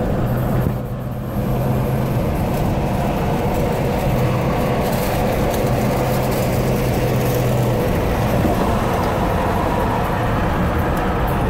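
Steady road and tyre noise of a car cruising at highway speed, heard inside the cabin, with a low hum that comes and goes.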